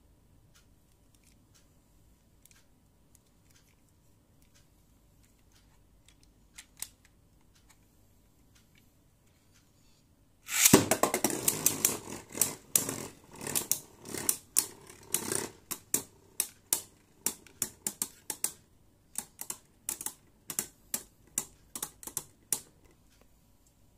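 Beyblade Burst spinning tops launched into a plastic stadium: a sudden loud rattle about ten seconds in, then sharp plastic clacks as the tops strike each other and the stadium walls, thinning out until they stop near the end. A few faint clicks come before the launch.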